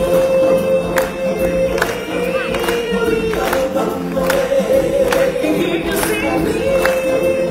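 Live stage-show music: a group of singers holding long notes together in a choir-like chorus, with sharp percussion hits every half second to a second.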